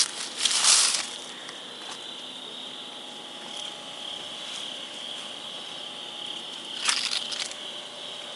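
Night insects, likely crickets, chirping steadily in a continuous high trill. Two louder bursts of rustling break in: one in the first second and one about seven seconds in.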